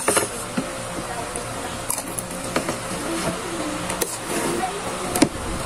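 Eating sounds: wet chewing and mouth noises, with a few light clicks of spoons against plates, over a steady faint background hum.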